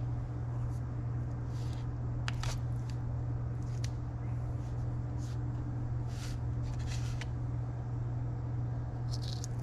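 Short, scattered rustles and scrapes of hands working dried thyme and seasoning onto raw quail, over a steady low hum.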